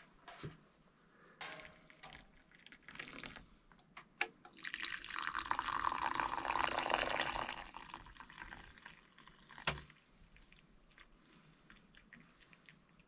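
Liquid poured from a blackened kettle into wooden kuksa cups: a few light knocks as the kettle is handled, then the pour builds for about three seconds and tails off. A single sharp knock comes about two seconds after the pour.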